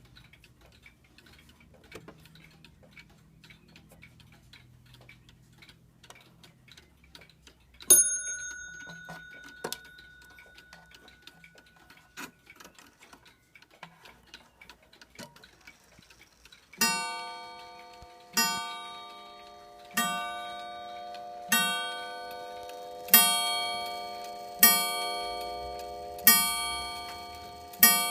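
Waterbury U.S.A. pendulum mantel clock ticking faintly, with one sharp ringing strike about a third of the way in. Past halfway it begins striking the hour: evenly spaced ringing blows about every second and a half, eight of them here, each left to ring out.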